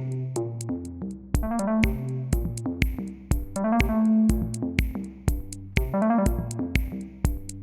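Electronic background music: a steady drum-machine beat under synthesizer notes.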